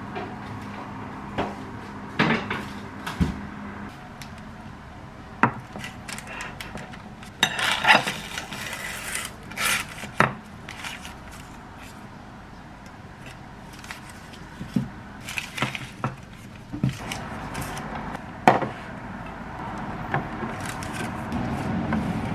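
Kitchen handling noises: scattered knocks and clinks of a plate and objects set down on a countertop, with short bursts of rustling from the parchment paper under the cake. Near the end comes the knock of a plastic storage box being handled.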